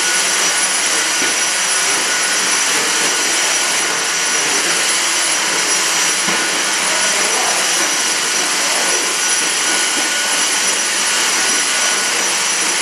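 Stick vacuum cleaner running steadily: an even rush of air with a thin, steady high whine from its motor.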